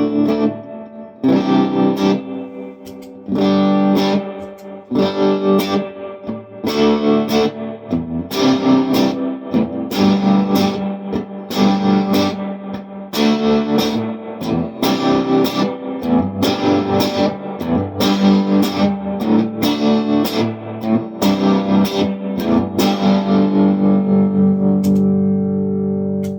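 Electric guitar, a Japanese Fender Telecaster on both pickups, played through a Vox AC15 amp with an Electro-Harmonix LPB-1 Nano power booster and reverb: a run of picked chords with a slightly driven tone, the last chord left ringing near the end.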